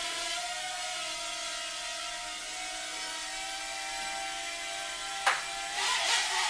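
Eachine H8 Mini micro quadcopter's four small brushed motors whining steadily in flight. A sharp knock comes about five seconds in, then the whine wavers under a short burst of noise near the end.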